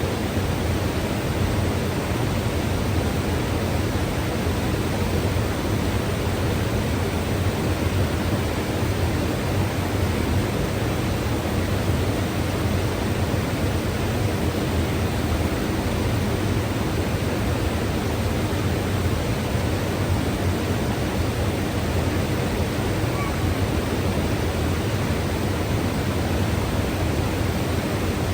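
Mountain river rushing steadily, a constant full-bodied water noise strongest in the low range, with no change or break.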